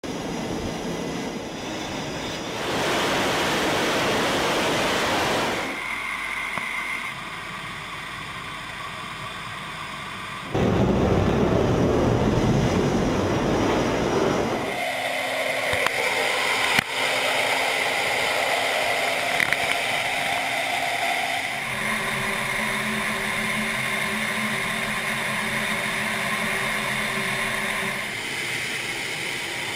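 Jet aircraft noise in several abruptly changing stretches: bursts of loud rushing roar, then a steadier engine whine with a few held tones. A single sharp click partway through.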